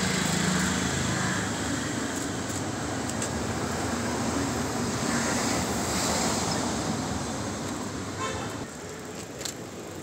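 Street traffic noise: a steady rush of passing vehicles that eases off about eight and a half seconds in.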